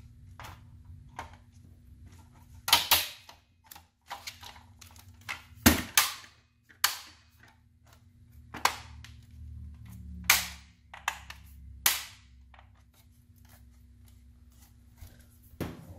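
Sharp plastic clicks and taps as the gauge face of a 2005 Ford Mustang instrument cluster is fitted back over the circuit board and pressed into place: about half a dozen loud snaps spread through the clip, with lighter ticks between them.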